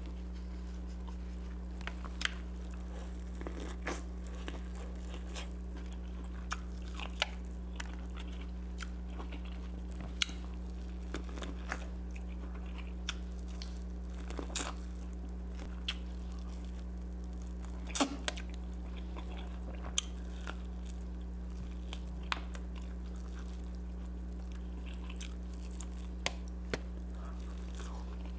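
Close-miked eating of seasoned corn on the cob: scattered sharp bites and crunches of the kernels with chewing and mouth smacks between them, one louder crunch a little past the middle. A steady low hum runs underneath.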